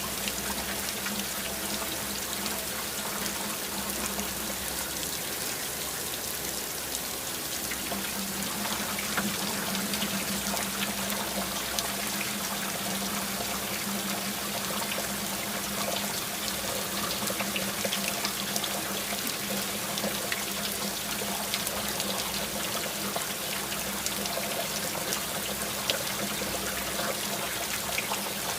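Steady rain falling: an even hiss dotted with the ticks of many single drops.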